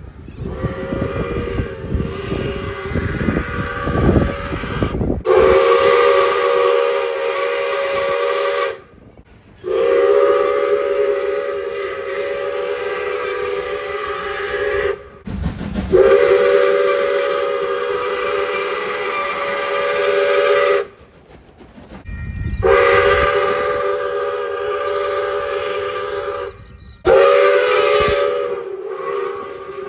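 A heritage train's multi-note whistle sounding five long blasts, each a steady chord of several tones lasting three to five seconds, cut one after another. A low rumble runs under the first five seconds.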